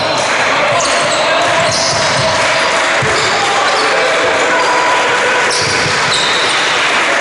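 A basketball bouncing on a wooden sports-hall floor during live play, with players' voices calling out in the large hall.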